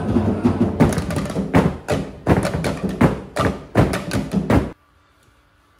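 Pacific Island dance music with drumming, then about a dozen loud, hard knocks in an uneven rhythm as dancers strike bamboo poles on the stage floor. The sound cuts off abruptly near the end.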